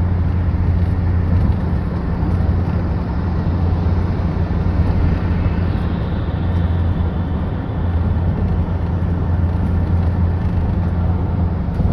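A loud, steady, low engine drone with a strong hum and a rushing noise above it. It starts suddenly and cuts off suddenly near the end.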